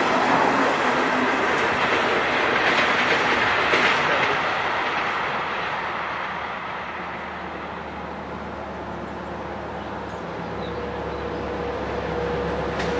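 Train running on the track with wheel and rail noise. It is loud for the first few seconds, fades away, then builds again near the end as a steady hum comes in.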